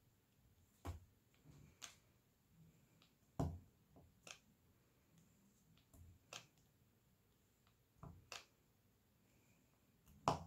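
Diamond-painting drill pen picking up drills and pressing them onto the canvas: soft, irregular clicks and taps, about one a second, with a louder tap about three and a half seconds in and another near the end.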